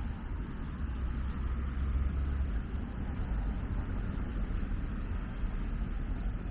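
Outdoor ambience of distant road traffic: a steady low rumble with a light hiss, with no distinct events.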